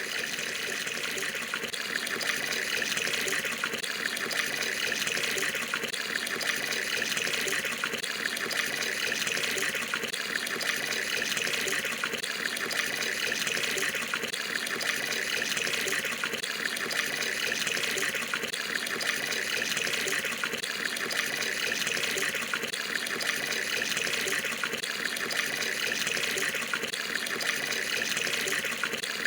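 Water pouring steadily from a tap into a partly filled Indonesian bathroom tub (bak mandi), splashing into the water already in it.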